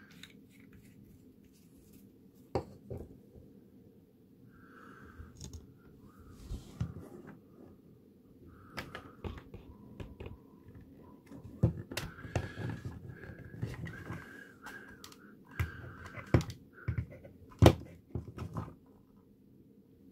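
Hands handling and pressing together 3D-printed plastic box parts: scattered sharp plastic clicks and knocks over soft rubbing and fumbling, the loudest knock near the end.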